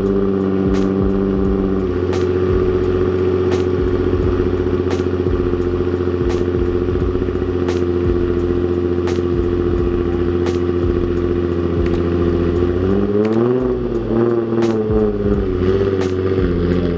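Nissan 350Z's VQ35 V6 engine running while the car is driven. Its note is steady, drops in pitch about two seconds in, and rises and falls with the throttle near the end, with faint, evenly spaced ticks throughout.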